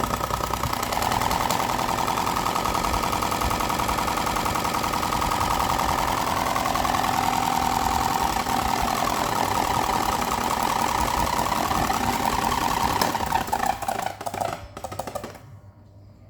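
Electric fan with a very loose, wobbling blade running and rattling loudly with vibration, a fast even clatter over a steady hum. It dies away about fourteen to fifteen seconds in.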